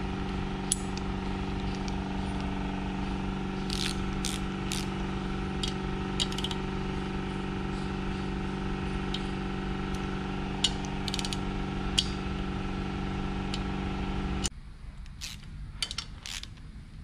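A steady mechanical hum from a shop machine stops abruptly near the end. Over it come scattered light metallic clicks and ticks from a click-type torque wrench being set and fitted to the rocker box bolts.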